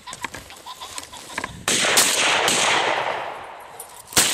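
Shotgun shots at a flushed pheasant: a blast about a second and a half in that rolls on with echoing cracks, then a second sharp shot near the end.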